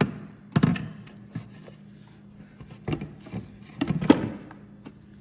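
Scattered knocks and clunks of hands and tools handling parts in a snowmobile's engine bay while the battery is moved aside, with a cluster of knocks about four seconds in and a faint steady hum underneath.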